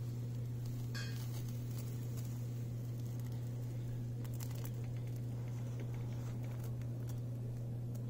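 A steady low hum with a few faint clicks; no birdsong is heard.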